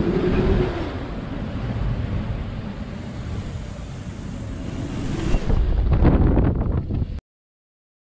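Wind buffeting the microphone over the rush of the sea aboard a sailing yacht, gusting louder about five seconds in. It cuts off abruptly to silence about seven seconds in.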